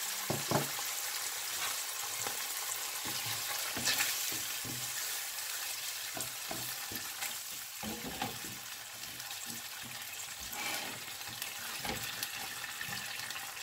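Tomato-paste sofrito sizzling in a frying pan while a spatula stirs and scrapes it. There are many short knocks against the pan over a steady hiss.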